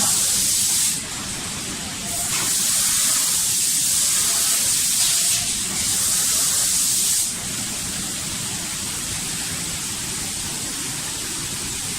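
Air spray gun on a five-axis automatic spraying machine, hissing as it sprays paint in on-off spells. It cuts out about a second in and starts again a second later, with a brief break past the middle. It stops a little after halfway, leaving a quieter steady background noise.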